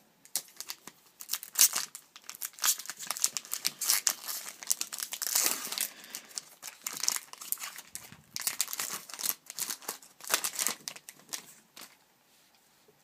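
Crinkling and tearing of a trading card pack wrapper as it is opened and pulled apart by hand, in a string of irregular crackles that stops about a second and a half before the end.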